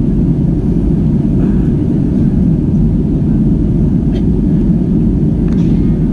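Steady, loud rumble of an Airbus A320-200 in flight, heard inside the passenger cabin: engine and airflow noise from the descent toward landing.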